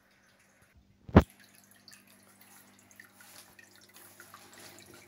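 A single sharp knock about a second in, then faint trickling and dripping of water running through the aquarium's overflow and drain pipes, over a low steady hum.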